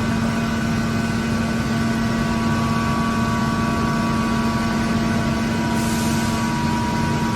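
Steady machine hum with a constant low tone and fainter higher tones, typical of running machinery in a compressor workshop; a brief hiss about six seconds in.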